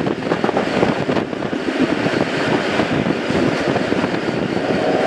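A train rumbling past, with wind buffeting the microphone. Near the end a steady, high whistle-like tone begins and holds.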